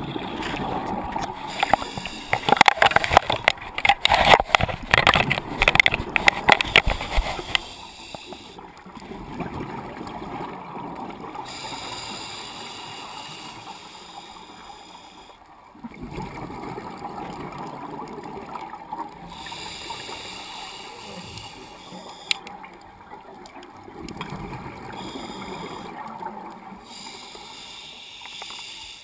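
Scuba diver's regulator breathing underwater: a hissing inhale alternating with a bubbling exhale, about one breath every seven seconds. The first several seconds hold a louder burst of crackling bubbles.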